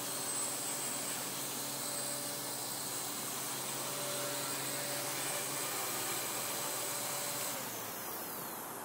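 Align T-Rex 250 electric RC helicopter running: a steady whirr of the rotor blades with a high whine from the electric motor. Near the end the whine stops and the sound eases off as the rotor slows.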